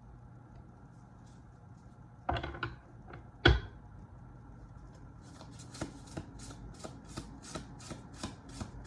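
A deck of tarot cards being handled: two sharp knocks of the cards on the table, then, from about five seconds in, the deck being shuffled in short even strokes, about three a second.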